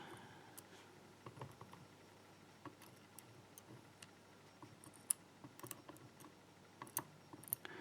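Faint, scattered light clicks and taps of small padlock pins and parts being handled on a work surface.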